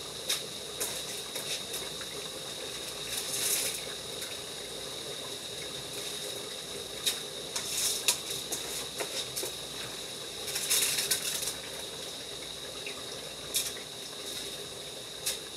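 Washed rice being tipped and scooped by hand from an aluminium pot into a pot of peas and coconut milk: wet splashes and rattles in several short bursts, over a steady hiss.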